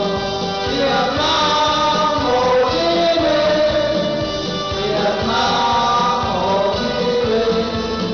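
A group of men singing together into microphones through a PA, holding long notes, with a steady beat in the accompaniment underneath.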